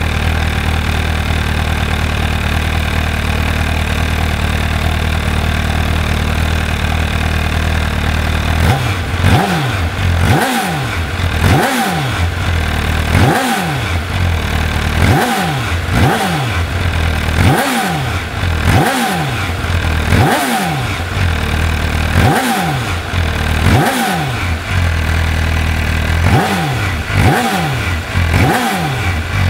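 MV Agusta F4 1078's inline-four engine on its stock exhaust, idling steadily, then from about nine seconds in revved in a series of quick throttle blips. Each blip rises sharply and falls back to idle, roughly one every second and a half, some coming two close together.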